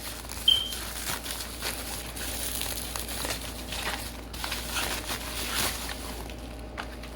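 Packaging crinkling and rustling as it is handled and unwrapped, with a brief high squeak about half a second in.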